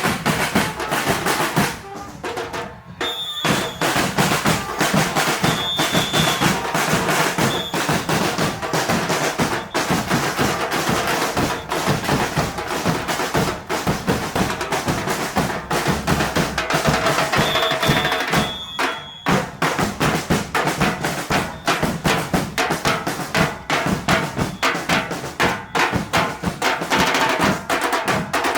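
Carnival murga percussion band playing: bass drums and snare drums in a fast, driving rhythm with snare rolls. The drumming breaks off briefly twice, about three seconds in and again about nineteen seconds in.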